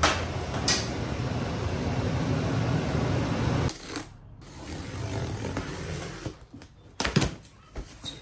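Nissan Titan Pro-4X pickup's V8 running as the truck pulls up, a steady low rumble, stopping abruptly after about three and a half seconds. Then a taped cardboard shipping box is handled and its flaps opened: quieter rustling, and a few sharp crackles near the end.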